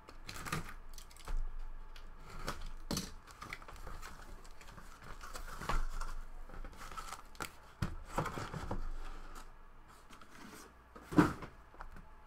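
Cardboard shipping case being opened and handled: irregular tearing, scraping and rustling of cardboard with scattered light knocks, and one sharper knock near the end as the boxes inside are moved.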